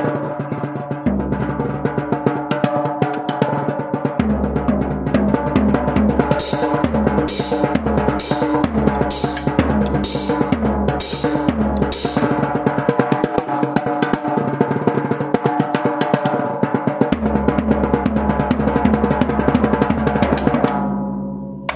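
Fast heavy-metal drumming on a small three-drum kit: rapid, continuous strokes with long stretches of fast bass-drum beating. In the middle come about eight sharp, bright accents less than a second apart, and near the end the playing thins to sparser hits.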